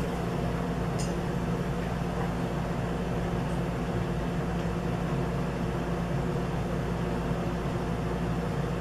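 Steady low electrical or fan-like room hum with a few constant tones, and a couple of faint clicks from a small object being handled.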